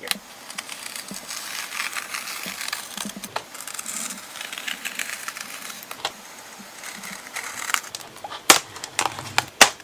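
Hobby knife blade scratching and slicing through clear plastic film and tape on a styrofoam packaging box, with a few sharp clicks near the end.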